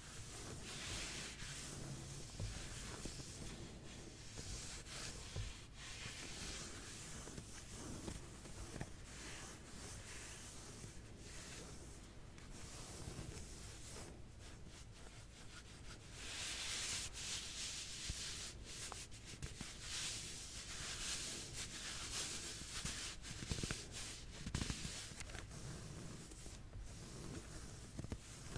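Dry scratching and rubbing strokes of an ASMR back scratch, continuous and varying in pace, growing louder about two-thirds of the way through.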